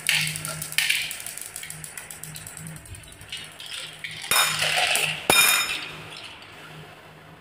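Glass marbles rattling down a wavy wooden marble-run track and knocking into one another, then a small toy container full of glass marbles clinking as it is handled, with a louder clatter about four seconds in and a sharp ringing click just after five seconds.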